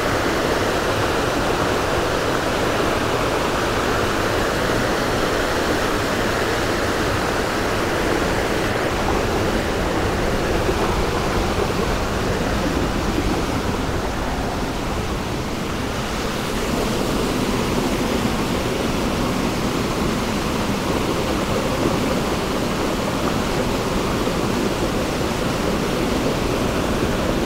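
A mountain torrent cascading over rock: a steady, even rush of white water.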